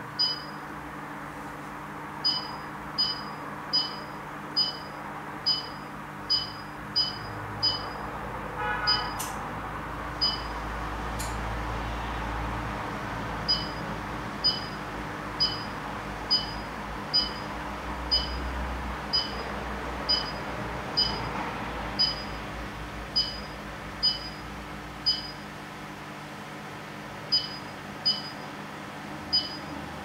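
Electric fireplace's control unit giving short, high beeps in runs of about one a second, each acknowledging a remote button press as the flame and backlight settings are changed. A low steady hum runs underneath.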